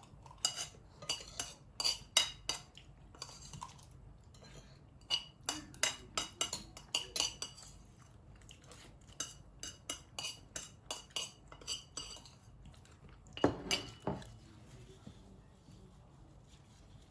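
Cutlery clinking and tapping against plates while eating, in quick irregular runs of sharp, lightly ringing clicks, with a louder clatter about thirteen seconds in.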